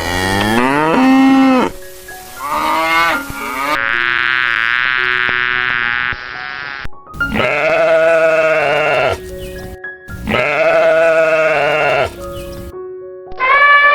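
Sheep bleating: about five separate long calls, cut back to back, with faint steady music tones in the gaps between them.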